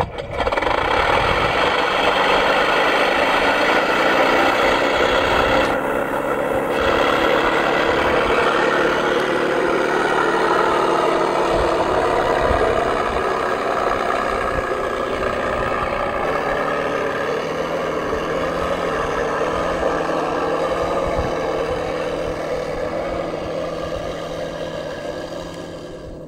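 Radio-controlled P-51 Mustang model's motor running steadily as the plane taxis along the runway, fading over the last few seconds as it moves away.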